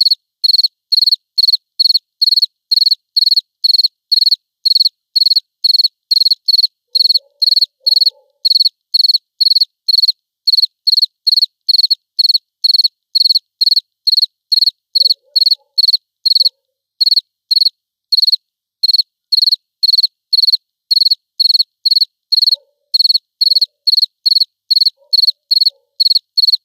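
A cricket chirping steadily: a high, even chirp repeated two or three times a second, with the odd brief pause in the rhythm.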